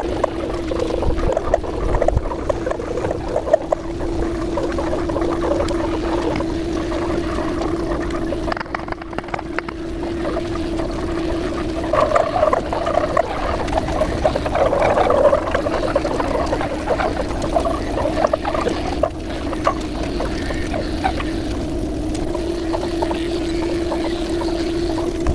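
Electric hair clipper buzzing steadily as it shaves a dog's coat, getting rougher for a few seconds midway as the blades run through the fur.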